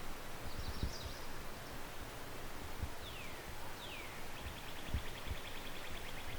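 Wild birds singing over a steady outdoor hiss: a short high chirp about a second in, two falling whistled notes near the middle, then a fast trill of repeated notes through the second half. Low thumps sound now and then underneath.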